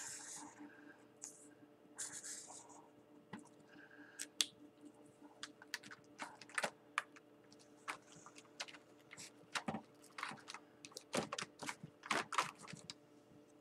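Felt-tip marker drawn across paper in a few short scratchy strokes, then an irregular scatter of light clicks and taps as markers are handled on the table, over a faint steady hum.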